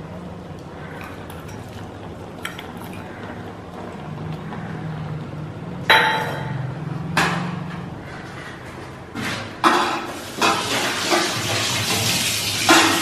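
Stainless-steel kitchen utensils clinking a few times with a sharp ring, then from about ten seconds in a kitchen tap running into a steel bowl in the sink as it is rinsed.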